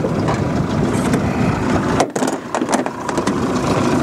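Mercury outboard motor idling on a small aluminium boat, a steady low rumble with wind on the microphone. A few sharp clicks and knocks near the middle from the longline gear being handled.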